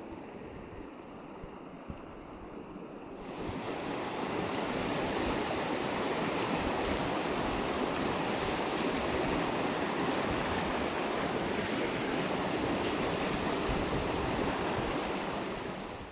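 Fast mountain river rapids rushing steadily; about three seconds in the rushing gets louder and brighter.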